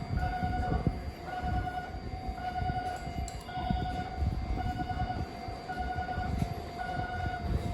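Japanese level crossing warning bell ringing steadily, its tone pulsing about once a second, over a low rumble.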